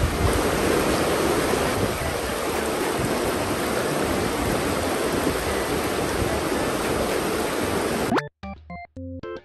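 Fast, shallow river water rushing and splashing over rocks in a riffle, a steady rushing noise. About eight seconds in it cuts off suddenly after a quick rising tone, giving way to background music of short repeated notes.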